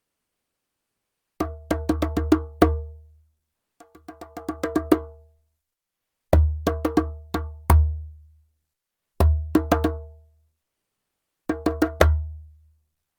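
Djembe played by hand in five short rhythmic phrases of four to six quick strokes each. Every phrase has a deep bass ring under sharper, higher slaps, with pauses of a second or more between phrases.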